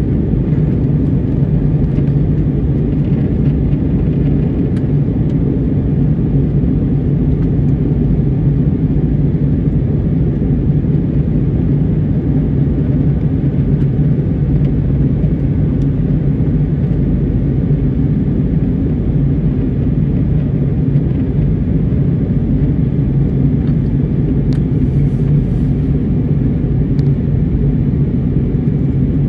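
Airliner cabin noise during the descent: the engines and the rushing air heard from inside the passenger cabin as a steady, low-pitched noise with a constant hum.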